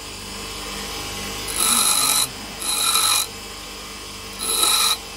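Bench grinder running steadily while a small copper battery terminal is pressed against its abrasive wheel in short grinding passes of under a second each: three full passes and a fourth beginning at the very end.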